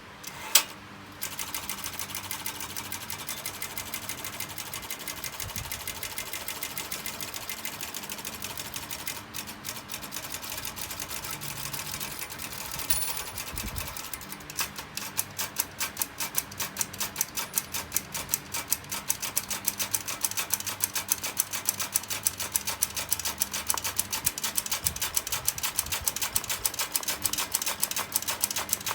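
Vintage Olympia typewriter being typed on: a fast, dense clatter of keystrokes, then from about halfway louder, even key strikes at roughly four a second.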